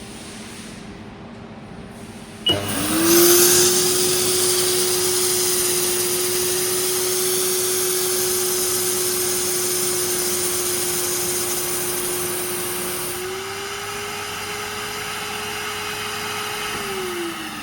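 Vacuum auto feeder (hopper loader) on a plastics extruder switching on about two and a half seconds in: a steady blower-motor whine with an airy hiss as it sucks polypropylene material up the feed tube. Its pitch rises a little near the end, then falls away as it winds down.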